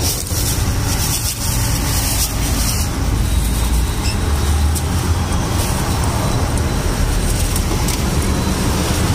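Steady, loud low rumble of road traffic and engine noise, with a hiss over it.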